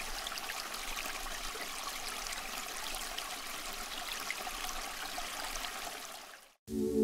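Water trickling steadily over a small tabletop waterfall fountain fed by a submersible pump. It cuts off abruptly near the end, and music begins.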